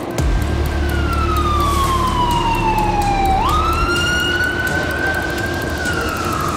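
Ambulance siren wailing over the low rumble of city traffic. The tone slides slowly down, jumps back up about three and a half seconds in, and begins to slide down again near the end.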